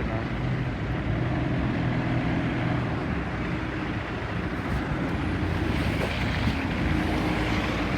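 City bus engine running with a steady low drone over a continuous rumble of road and air noise.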